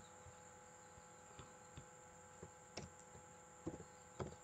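Near silence with scattered computer keyboard key presses and mouse clicks, about eight short clicks in all, the loudest near the end, over a faint steady electrical hum and hiss.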